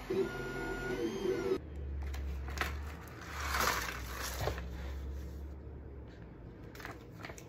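An Ender-3 3D printer's stepper motors whine briefly, their pitch shifting as the head moves. Then a plastic bag rustles as 3D-printed PLA mechanical-iris parts are tipped out onto a table with a few light clicks, over a low hum.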